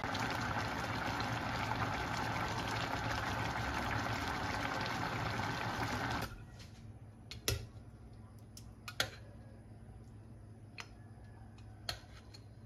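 Chicken stew bubbling at a simmer in a stainless pan on an electric cooker, a dense steady bubbling that cuts off suddenly about halfway. After it come a few sharp clinks of a utensil against the pan.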